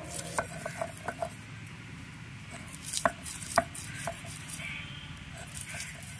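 Stone roller of a shil-nora grinding chopped onion on a flat grinding stone: a steady low scrape as it rocks back and forth, with irregular sharp knocks of stone on stone, the loudest about three seconds in.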